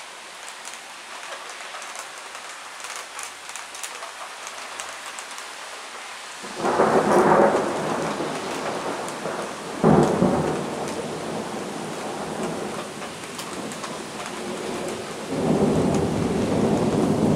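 Steady rain hiss with scattered raindrop ticks, then thunder rolling in about six seconds in. A sharp loud clap comes near ten seconds, the thunder rumbles on, and another swell of rumbling comes near the end.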